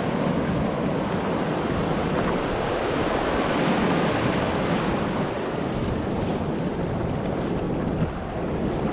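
Ocean surf washing over the shallows, a steady rushing of water, with wind noise on the microphone.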